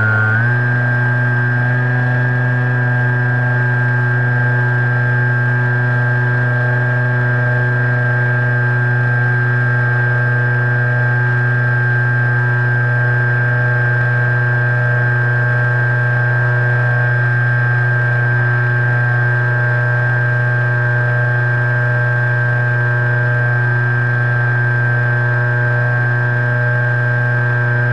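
FPV model airplane's motor and propeller, picked up by the onboard camera, running at a constant throttle with one even-pitched drone. Right at the end the pitch steps up as the throttle is opened.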